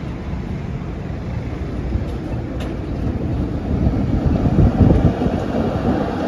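PCC streetcar rolling past on its street rails: a low rumble of steel wheels and running gear that swells to its loudest about three-quarters of the way through, with two sharp clicks about two seconds in.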